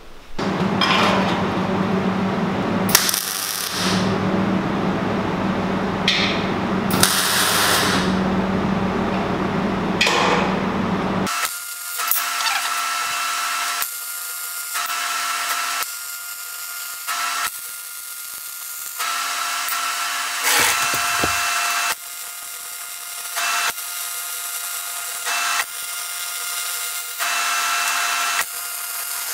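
An angle grinder runs steadily for about the first eleven seconds, with a few short breaks. Then a transformer MIG welder lays stop-start runs of weld: a sputtering crackle over the machine's hum, cutting in and out every second or two.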